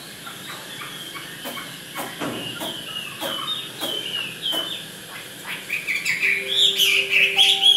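Chinese hwamei calling: short, repeated hooked call notes with scattered clicks and knocks, building into louder, continuous song near the end.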